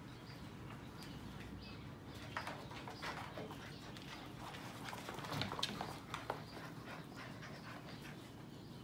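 Seven-week-old sheepadoodle puppies playing: faint high squeaks early on, then scattered light clicks and taps of paws and claws on the floor, busiest a little past the middle.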